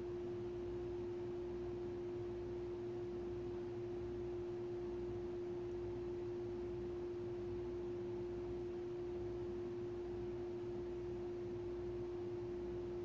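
A steady, unbroken single-pitched tone at a mid-low pitch, like a sine wave or a held hum, over faint low room noise.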